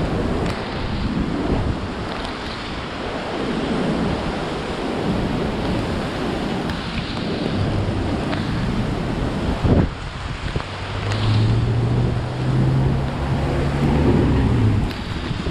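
Strong gusting tropical-storm wind buffeting the microphone, with rain. From about halfway through, a pickup truck's engine hums as it passes close by, loudest near the end.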